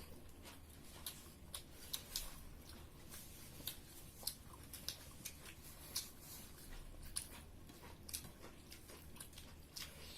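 Faint eating sounds: people chewing pork curry and rice, with irregular short smacks and clicks, a few a second.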